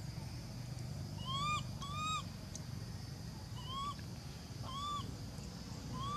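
Short, arched, whistle-like animal calls, each rising then falling, repeated five times: two close together about a second in, then three more spaced about a second apart. A low steady rumble runs underneath.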